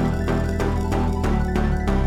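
Background music with a steady beat of short percussive notes, about four to five a second.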